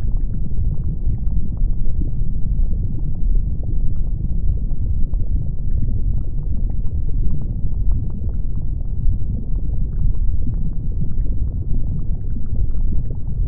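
Volcanic eruption with flowing lava: a steady low rumble with many small sharp crackles and pops scattered throughout.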